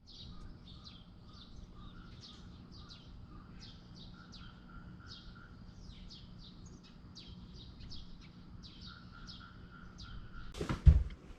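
Small birds chirping: short falling chirps, a few a second, over a low steady rumble. Near the end a loud knock or clatter cuts in, the loudest sound.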